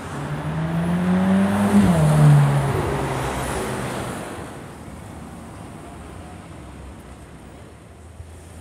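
Sports-car engine accelerating hard: its note climbs, drops sharply about two seconds in, then fades away into steady street traffic noise.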